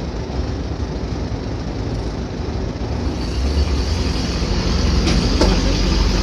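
Ferry's engine running steadily as a low rumble with a deep hum, growing louder from about three seconds in as the ferry gets under way. A few sharp knocks come near the end.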